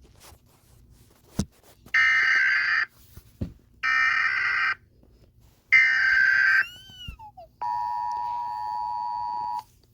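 Emergency Alert System tones: three harsh buzzing data bursts of about a second each, a second apart, that make up the SAME header. Then a short falling glide, and then the two-tone attention signal held steady for about two seconds before it cuts off, signalling that an emergency alert message follows.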